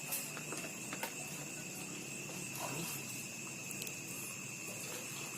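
Steady insect chorus: two constant high-pitched drones running unbroken, with a couple of sharp faint clicks in the first second.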